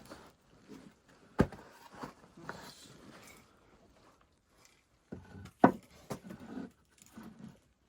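Two sharp knocks, one about a second and a half in and a louder one about five and a half seconds in, with quieter shuffling, rustling and light knocking in between, like things being handled and set down on wood in a small room.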